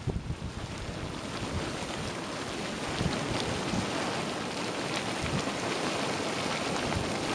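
Geyser pool churning at its vent: hot water bubbling up and splashing in a steady rush, with small irregular gurgles.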